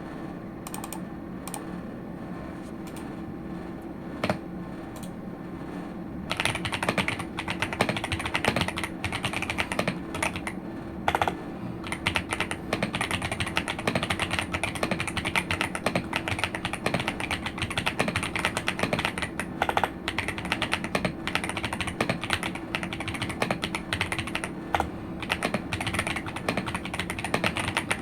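Typing on an Ajazz AK820 mechanical keyboard with yellow switches: a few scattered keystrokes for the first six seconds or so, then fast, continuous typing. A steady low hum runs underneath.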